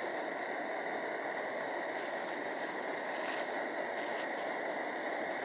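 Pressurized liquid-fuel camp stove burning under a pot, a steady, even hiss with no break.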